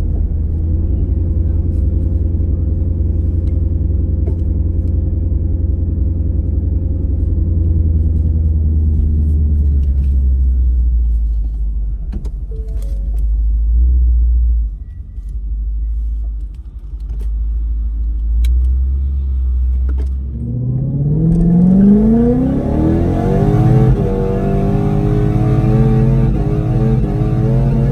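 Whipple-supercharged Ford Coyote V8 in a drag Mustang idling with a steady low rumble, then about twenty seconds in revving up with a rising pitch, climbing in stages and held at high revs with a hissing edge.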